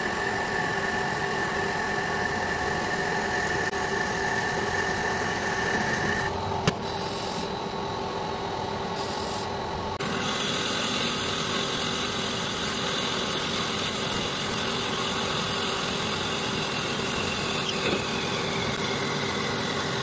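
Metal lathe running under cut, a steady spindle-and-gear hum with the hiss of a carbide tool boring and turning a metal sleeve. A thin high tone rides over it for the first six seconds or so, and there is one sharp click about seven seconds in.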